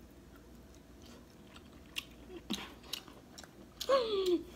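Person chewing a mouthful of butter-dipped king crab meat, with a few wet mouth clicks and smacks. Near the end comes a short hum that falls in pitch.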